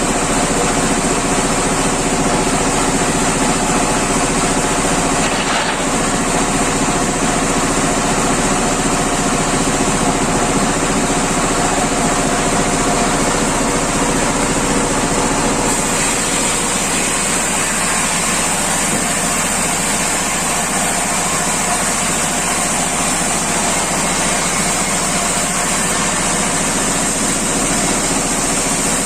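Engine-driven wood slicing machine running steadily, with a constant high-pitched whine over the engine.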